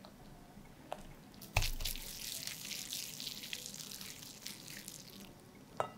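Whisk working thick chocolate cake batter in a glass bowl: wet, sticky squishing for several seconds as flour is mixed into the cocoa-oil base. There is a knock about a second and a half in and a light click near the end.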